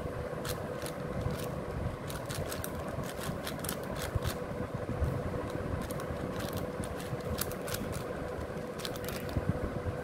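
A stickerless 6x6 Rubik's cube being turned quickly by hand: runs of irregular plastic clicks and clacks as the layers rotate, with short pauses between runs, over a steady low hum.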